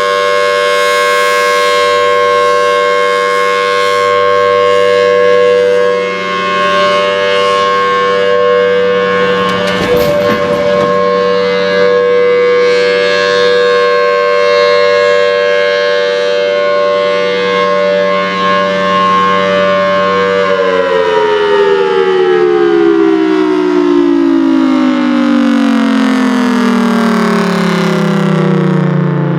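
Federal Signal Thunderbolt 1000T outdoor warning siren sounding the alert signal, a loud steady tone. About twenty seconds in the pitch starts falling and keeps dropping as the siren winds down at the end of the test. A brief burst of noise cuts across the tone about ten seconds in.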